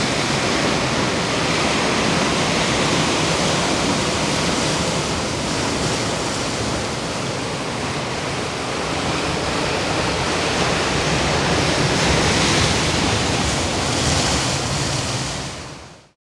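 Ocean surf washing in a steady rush of noise, swelling slightly later on before fading out to silence near the end.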